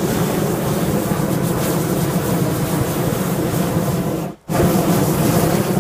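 Hot-air balloon's propane burner firing in a loud, steady roar, with a brief break about four and a half seconds in before it fires again.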